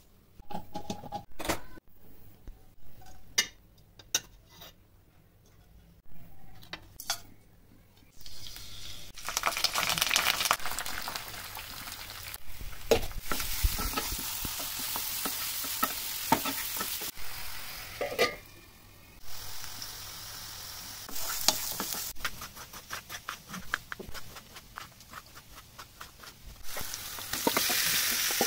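A few scattered knocks and clicks, then from about eight seconds in, onions, green chillies and curry leaves sizzling as they fry in oil in a kadai while being stirred. The sizzle eases briefly a little past halfway, then picks up again.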